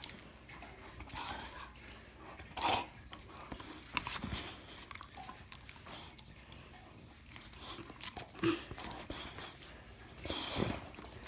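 A dog playing with a plastic ring toy in its mouth: scattered short noises of the dog mouthing the toy and breathing, with a few sharper knocks.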